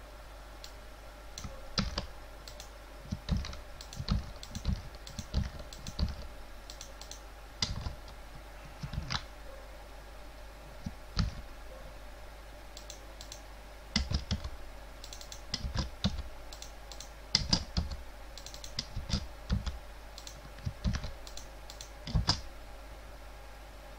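Computer keyboard being typed on in irregular short runs of keystrokes, with pauses of a second or two in between.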